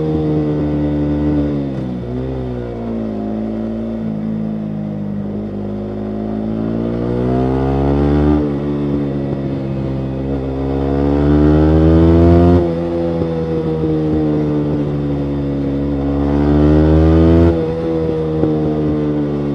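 Yamaha MT-125's single-cylinder 125 cc four-stroke engine running through a full Akrapovic exhaust while riding. The revs climb and fall back several times, dropping sharply about halfway through and again near the end as the throttle is eased or a gear is changed.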